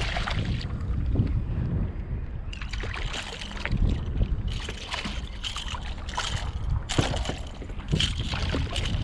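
A hooked jack thrashing at the surface beside a kayak, splashing in several short bursts over a steady low wind rumble on the microphone.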